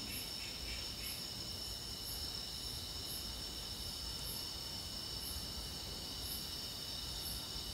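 Faint crickets chirping: a soft, very high chirp about once a second over a steady high-pitched hum, with a faster chirping that stops about a second in.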